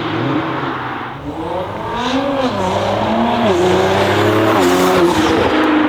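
Tuned 680 hp Nissan GT-R R35's twin-turbo V6 engine revving, its note rising and falling several times, with a short dip a little over a second in.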